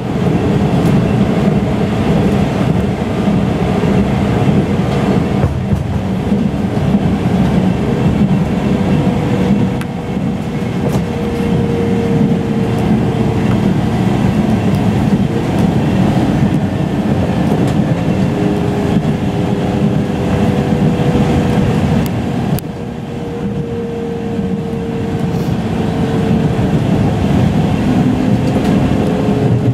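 Inside a moving train: a steady rumble of wheels on the track, with a faint whining tone that comes and goes several times.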